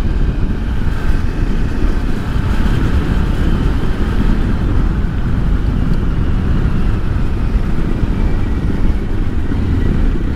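Steady wind rush on the microphone of a motorcycle at road speed, with the Kawasaki Versys-X 300's parallel-twin engine running evenly underneath.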